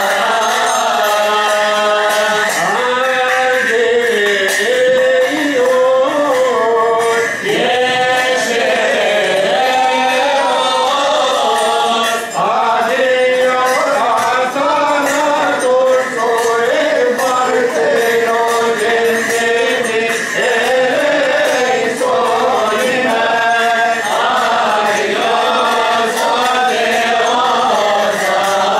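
Coptic Orthodox liturgical hymn being chanted, with long drawn-out notes that rise and fall in an unbroken melody.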